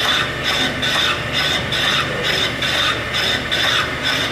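An electric brake shoe machining tool runs with a low motor hum while its rotating cutter rasps across the brake shoe linings. The scraping pulses about twice a second as the cutter comes round. The shoes are being trued so they make full contact with the drum.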